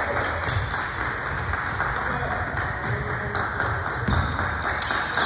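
Basketball game in a gym: many voices chattering throughout, sneakers squeaking on the court and a ball bouncing now and then.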